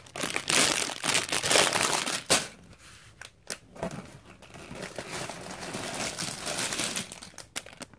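Clear plastic Lego parts bags crinkling as they are handled and moved. The crinkling is loudest for the first two seconds or so, then goes on more softly.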